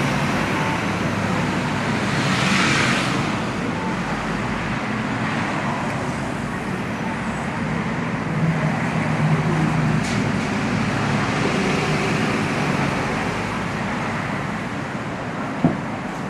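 City street traffic: a steady hum of road vehicles, with one vehicle passing close about two to three seconds in.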